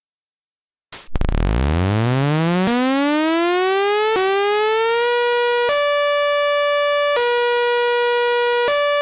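Electronic tornado-siren sound: a buzzy tone winds up in pitch from very low to a steady note over about four seconds. It then alternates between a lower and a higher pitch about every second and a half, high-low, and starts and stops abruptly.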